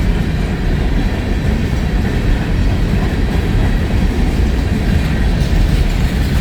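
Empty coal cars of a freight train rolling past, a steady loud rumble of wheels on rail.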